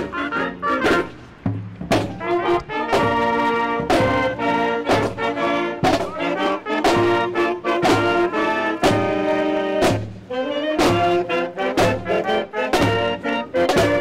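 Marching band of brass, saxophones and sousaphone playing a tune together, with a drum striking a steady beat about once a second.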